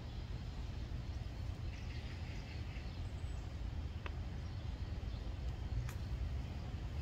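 Outdoor ambience: a steady low rumble, with faint bird chirps about two seconds in and two light clicks later on.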